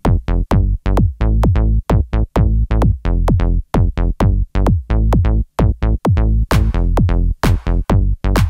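Background music: an electronic track with a fast, even drum-machine beat over a steady bass.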